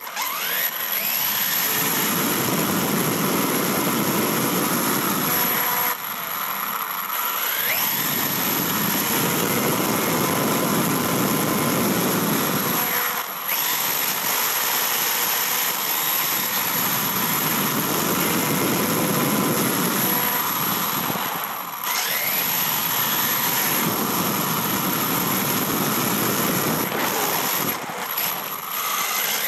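HPI WR8 Flux 1/8 RC rally car driving hard: the brushless electric motor and drivetrain whine under throttle over loud tyre and road rumble, heard from a phone mounted on the chassis. The car takes off at the start, and the whine rises as it accelerates through several runs, easing off briefly about four times.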